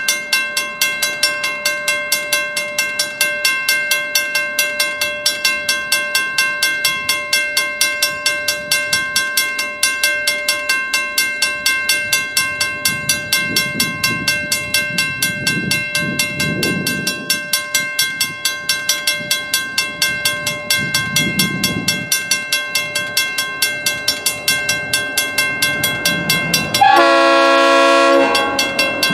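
WC Hayes mechanical grade-crossing bell ringing with rapid, even strokes at an activated crossing. Near the end the approaching diesel locomotive sounds one loud horn blast about a second long.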